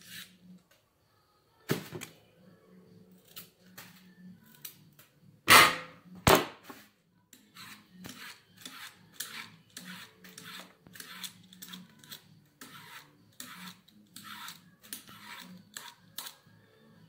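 A carrot being peeled by hand with a vegetable peeler: short dry scraping strokes, about two to three a second. Three sharp knocks on the counter cut in, the loudest about five and a half seconds in.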